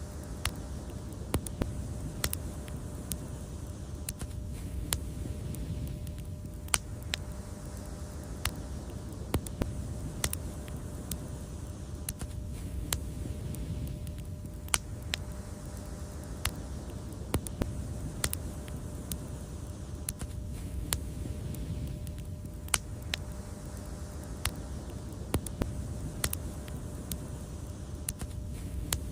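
Wood fire crackling: irregular sharp pops and snaps, a few of them louder, over a steady low rumble of the burning fire.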